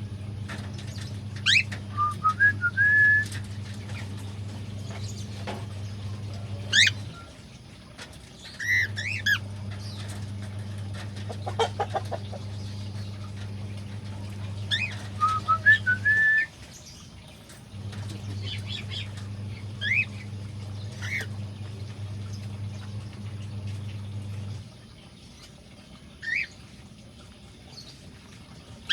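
Cockatiels calling: scattered sharp, rising chirps and short whistled notes, over a steady low hum that cuts out twice and stops near the end.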